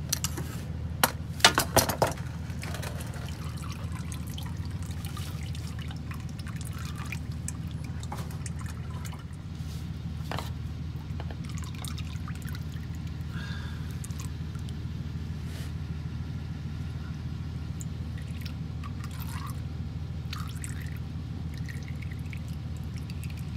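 Used engine oil pouring and dripping from a spin-on oil filter as it is unscrewed by hand, with a few sharp clicks and knocks of the filter and wrench being handled in the first two seconds, over a steady low hum.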